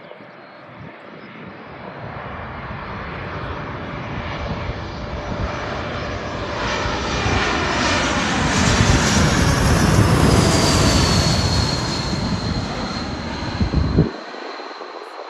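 Twin-engine jet airliner on landing approach with gear down, passing low overhead: the engine noise swells to its loudest about two-thirds of the way in, with a high whine that drops in pitch as the plane goes over. The low rumble cuts off suddenly near the end.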